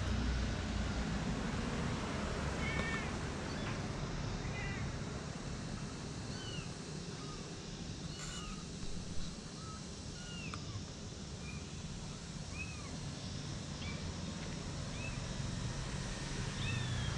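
Month-old kittens mewing: many short, high, thin mews scattered throughout, over a steady low background rumble, with one brief click a little before halfway.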